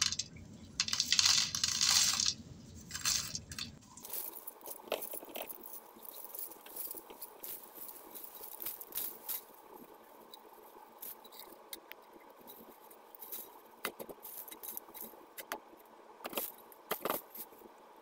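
Carbonized eggshell flakes pouring from a bowl into a jar. A dense rattle runs for the first two seconds or so, then scattered light clicks follow as single flakes drop in.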